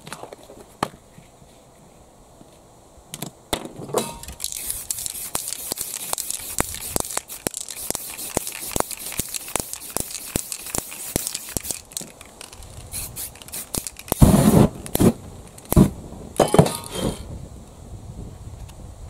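Aerosol spray paint can hissing as black paint is sprayed over a paper stencil, with small clicks through the spray. Near the end, a few loud, short rustling and scraping noises of the paper stencil being handled.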